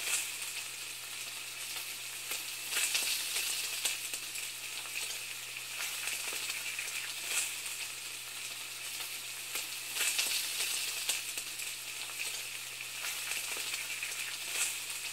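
Frying sizzle: a steady crackling hiss of food cooking in a hot pan, swelling briefly about three seconds in and again about ten seconds in. A faint low hum runs underneath.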